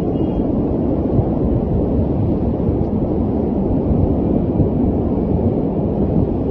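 Continuous deep rumble from a large distant fireball after an industrial explosion, holding steady with no separate blasts.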